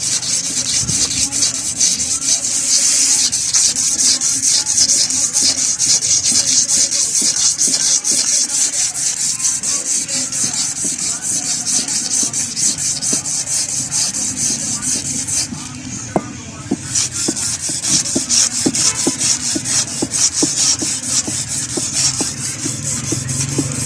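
Seized Suzuki engine crankshaft being rubbed down by hand with abrasive paper, wetted with petrol, in quick back-and-forth strokes to clean scoring off the seized surface. The scraping is loud and steady, with a brief pause about two-thirds of the way through.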